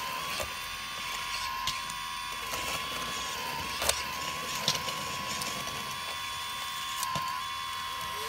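Hydraulic pump of a radio-controlled model excavator whining steadily, dipping briefly in pitch now and then as the arm and bucket work. Sharp clicks and knocks of gravel against the steel bucket, the loudest about four seconds in.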